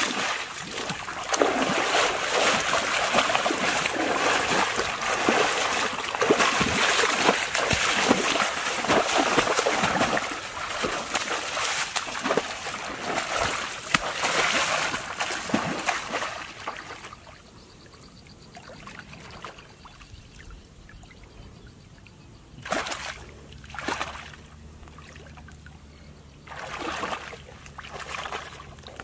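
Water splashing and sloshing in a shallow muddy puddle as a person wades and lunges to catch a fish by hand, heavy and continuous with many sharp splashes. A little over halfway through it dies down, leaving a few separate splashes.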